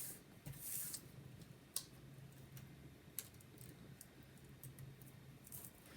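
Faint, scattered light clicks and taps of small laptop parts and tools being handled, over a faint steady low hum.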